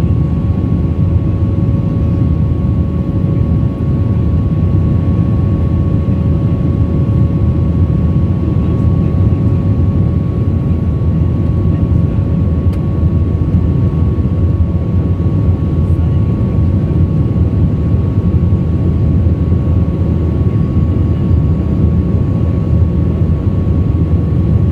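Airbus A320-232's IAE V2500 turbofan engines and rushing airflow heard inside the passenger cabin during the climb: a loud, even low rumble with a steady hum running through it.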